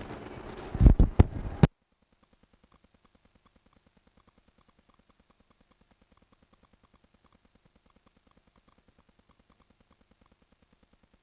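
A few loud knocks or thumps over room noise, cut off abruptly about a second and a half in. Then near silence with faint, evenly spaced ticking.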